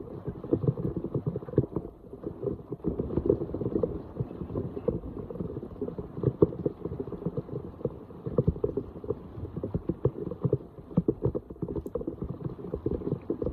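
Floodwater splashing and gurgling at a clogged street drain, with many irregular small splashes.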